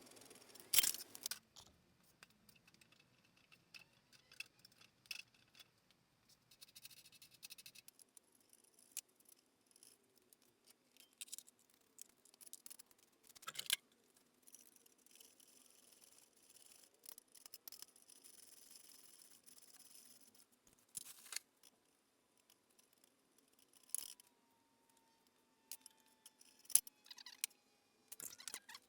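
Scattered metallic clicks and clinks of hand tools and loose parts being handled while a mini bike frame is taken apart, with a few sharper knocks about a second in, around the middle and near the end.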